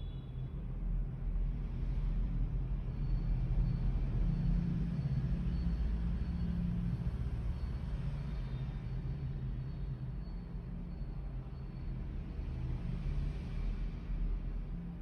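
Voltage stabilizer's transformer humming steadily under power, a low mains hum.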